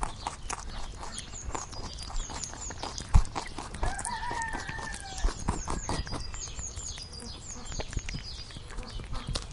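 Rabbit munching grass, a close, rapid run of crisp chewing and tearing clicks. Over it, small birds chirp in short high notes again and again. About four seconds in, a rooster crows once, faintly.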